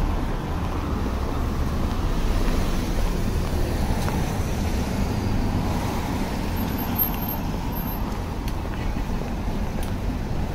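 Steady city street traffic noise: a constant low rumble of cars and other road vehicles running past.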